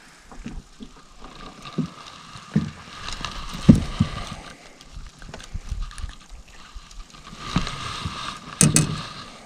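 Scattered knocks and thumps of handling gear and fish in a fishing boat, over a steady faint hum, with a brief louder burst near the end.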